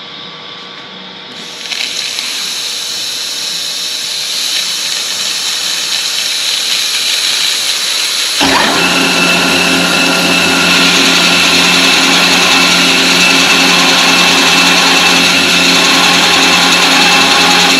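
Vertical milling machine running with a twist drill in the spindle over a steel tube. A hiss builds for several seconds, then about eight and a half seconds in the machine steps up suddenly to a louder, steady run with a low hum and a high whine.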